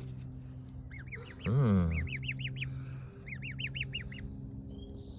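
A gosling peeping in two quick runs of high chirps, each about a second long.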